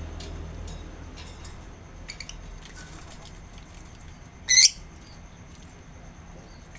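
Birds calling: a few faint short chirps, then one loud, brief, wavering high call about four and a half seconds in.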